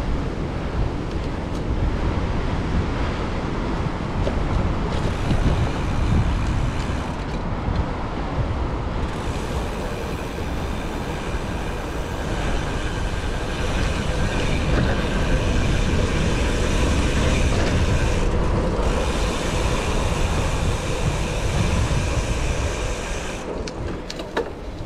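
Wind rushing and buffeting over the microphone of a moving bicycle, over continuous road and traffic noise.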